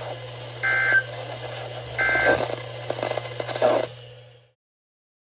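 EAS/NOAA Weather Radio digital SAME data bursts: two short two-tone warbling chirps a little over a second apart, over radio hiss and a steady hum. This is the pattern of the end-of-message code that closes an alert. The audio then cuts off abruptly.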